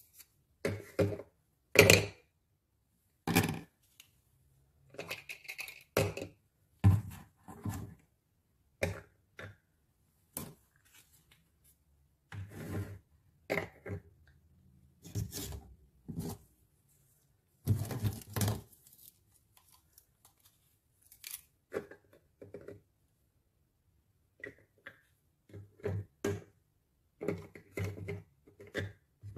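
Small hard plastic toy-kitchen pieces (pots, lids and play food) being handled and set onto a plastic toy stove: irregular clicks, taps and short scrapes of plastic on plastic, with short pauses between them.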